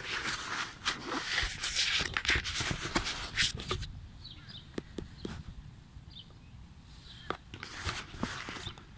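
A large dog rustling and crackling through tall, dry grass as it noses around for hidden treats. The grass noise is dense for the first few seconds, then thins to scattered clicks and rustles.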